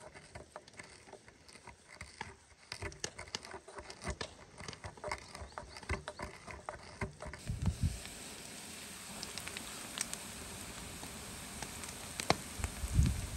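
Wooden pestle pounding and grinding spices in a small wooden mortar: a fast, irregular run of dry knocks and taps. About halfway through it gives way to a steady hiss with a few scattered clicks and a couple of low thumps.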